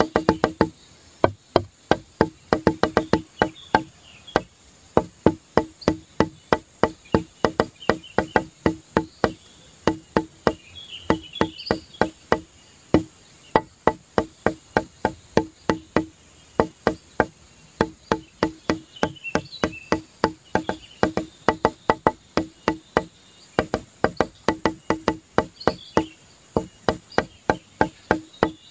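Rapid runs of sharp, wooden-sounding clicks, all at one low pitch, each run lasting a second or two and repeating throughout, with faint high chirps between them.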